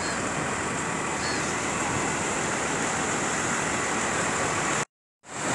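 Steady wash of noise from a tractor pushing a boat trailer across beach sand, mixed with surf and wind on the microphone. The sound cuts out briefly near the end.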